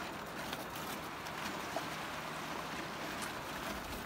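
Steady rushing hiss of a river flowing past a stony bank, with a few faint ticks.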